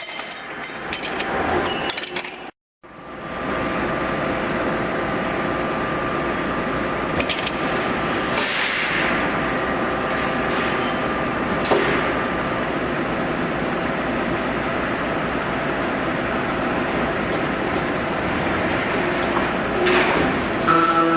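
Circular pipe-cutting saw running steadily, with a faint steady whine that stops about halfway through. The sound cuts out completely for a moment near the start.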